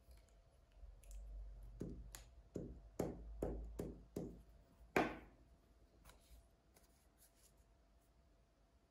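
Glue stick rubbed on a strip of red card in about six short scraping strokes, then one longer sweep, followed by faint handling of paper on a plastic board.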